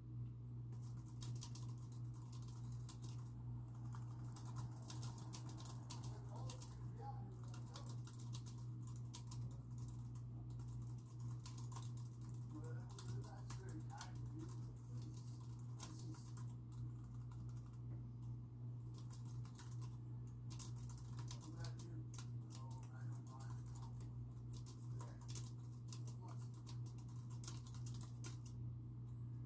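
Irregular, continuous clicking of fingers typing on a computer keyboard over a steady low hum. Faint, muffled television dialogue comes through in stretches from another room.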